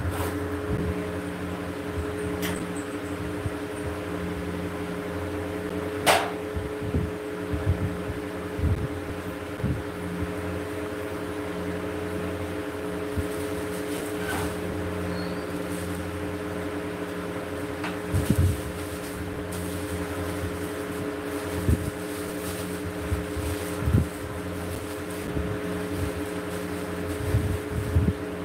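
Electric ceiling fan running: a steady motor hum with several held tones, broken by a sharp click about six seconds in and a few low knocks later.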